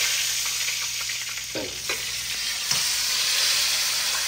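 Food frying in hot oil in a pot, sizzling steadily, with a few short knocks or scrapes about midway.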